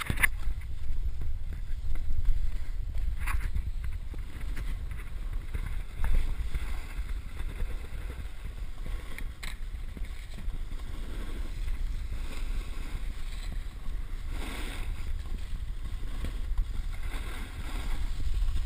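Wind buffeting the camera microphone, a steady low rumble, with a few faint scrapes of a snowboard on snow.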